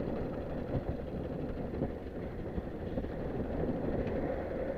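Steady low rumbling noise on a fishing boat at sea in strong wind, with wind buffeting the microphone.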